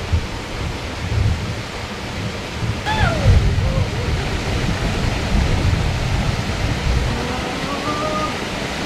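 Water rushing over a small rocky cascade in a forest stream: a steady rushing noise with a gusty low rumble. A few brief gliding calls come about three seconds in and again near the end.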